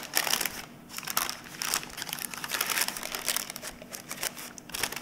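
Baking paper crinkling and rustling in irregular bursts as hands press pie dough down into a deep tart tin.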